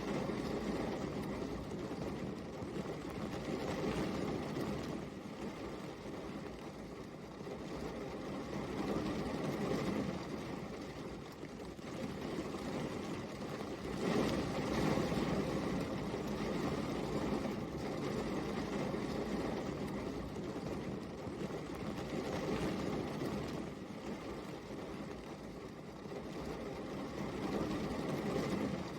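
Steady rain falling, an even rush of noise that swells and eases every few seconds.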